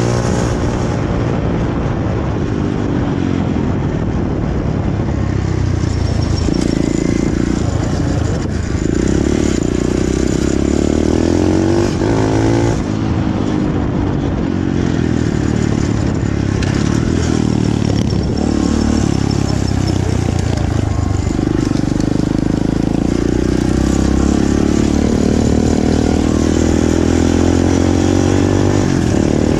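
Small pit bike engine running under power on the road, its note climbing and then dropping several times as the rider revs and shifts through the gears.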